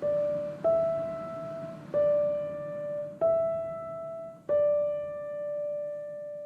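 Background music: slow solo piano notes, five struck one by one and alternating between two close pitches, the last left ringing out.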